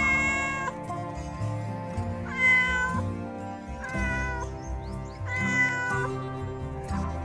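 A kitten meowing four times, each call about half a second long, over background music.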